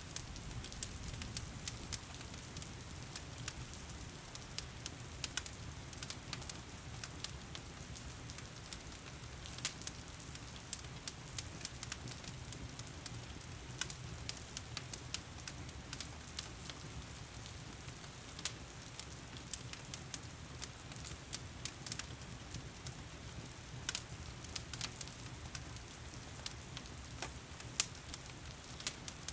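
Heavy rain falling steadily, with a wood fire crackling through it in irregular sharp pops and snaps.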